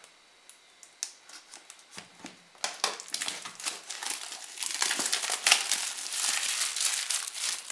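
Clear plastic wrap, peeled off a phone's retail box, being crumpled in the hand. After a quiet start with a few light taps, it crackles densely from about two and a half seconds in.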